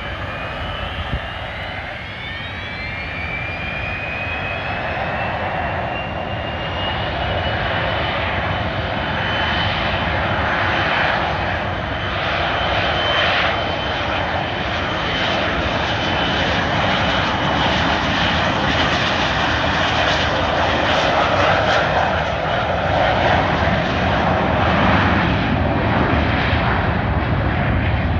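Gulfstream III business jet's twin Rolls-Royce Spey turbofans spooling up to takeoff power, with a whine that rises in pitch over the first few seconds and then holds steady. A loud jet roar grows steadily louder as the jet rolls down the runway and lifts off near the end.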